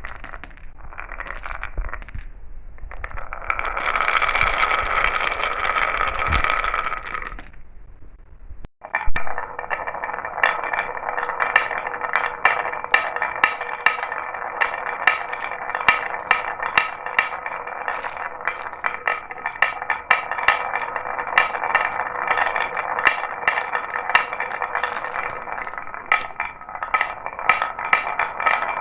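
Marbles rolling along a marble run track, with a steady rolling rumble and many sharp clicks and clacks as they hit the track and each other. About nine seconds in the sound cuts off briefly, then a denser stream of rapid clicks carries on.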